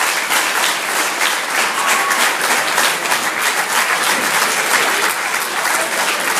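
Audience applauding: dense, continuous clapping from a crowd.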